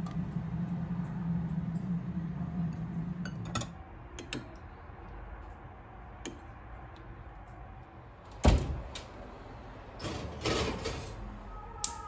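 Kitchen handling sounds: a low hum for the first few seconds, then scattered clicks and light knocks of a spoon and glass baking dish, with one louder thud about eight and a half seconds in.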